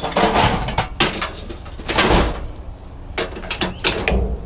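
Scrap being rummaged and pulled from a junk pile: a run of scraping, rustling clatters, then quicker sharp clicks and knocks near the end.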